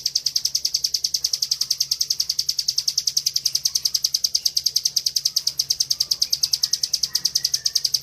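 Bar-winged prinia (ciblek) giving its continuous 'ngebren' trill: a fast, even run of high, sharp notes, about ten a second, held without a break. Fainter short chirps sound underneath.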